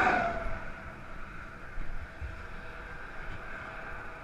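Highway traffic: a vehicle passes close by at the start, its rush fading within about half a second, then the steady hum of more distant passing traffic.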